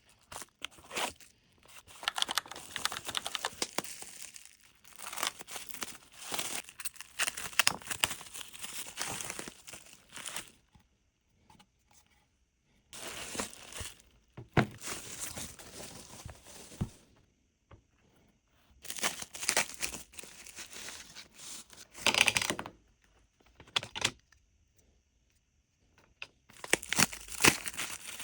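Packaging being torn open and crinkled by hand, in bursts of rustling and tearing with short pauses between.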